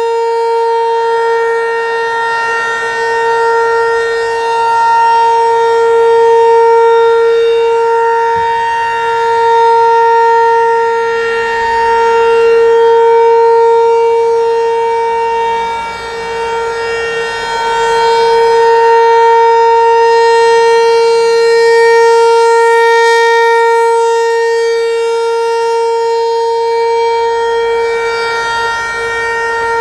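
Federal Signal Equinox outdoor warning siren sounding its steady 465 Hz alert tone for a test. The loudness swells and fades every several seconds as the slowly rotating head sweeps past and away, with a brief dip about halfway through.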